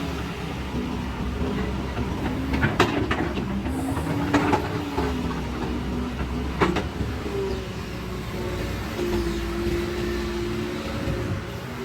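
Excavator working: the engine runs steadily with a pitched tone that steps up and down as the machine works, broken by several sharp knocks, the loudest about three seconds in and another near seven seconds.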